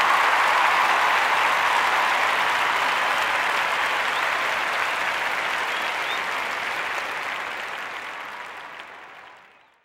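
A crowd applauding, a dense steady clatter of many hands that fades away over the last two to three seconds.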